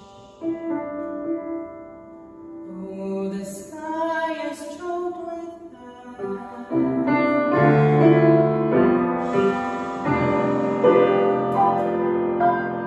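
A woman singing long held notes with grand piano accompaniment. About seven seconds in, the piano turns fuller and the music grows louder.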